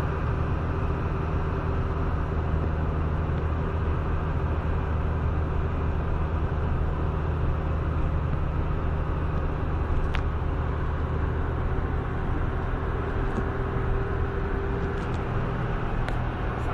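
Steady engine and road noise inside a vehicle's cab at highway speed: a constant low hum with a faint steady whine above it.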